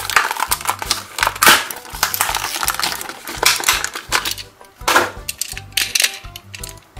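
Thin plastic packaging crinkling and crackling in the hands as a die-cast Siku toy car is pulled out of its bag, in irregular bursts with the loudest crackles about a second and a half and five seconds in. Background music with a bass line runs underneath.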